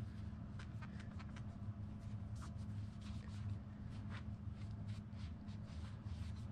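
A cloth rag rubbed along a fishing rod blank: a string of short, irregular scratchy wiping strokes, over a steady low hum.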